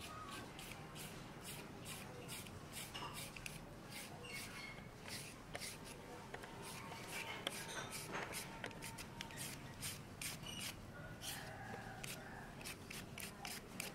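Hand-held shredding peeler scraping raw pumpkin flesh into thin strands, with quick, evenly repeated rasping strokes.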